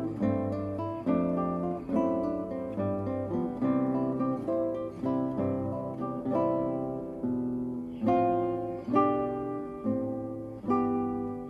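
Background music: acoustic guitar playing plucked chords, a new chord about every second.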